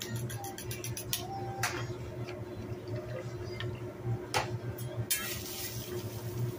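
Metal spatula tapping and clicking on a hot teppanyaki griddle, a few sharp clicks. From about five seconds in, liquid spread across the hot steel sizzles with a steady hiss over a low hum.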